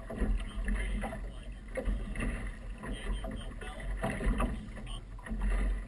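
Small motorboat under way on choppy water: its outboard motor running under irregular, gusty low rumble from wind buffeting the microphone.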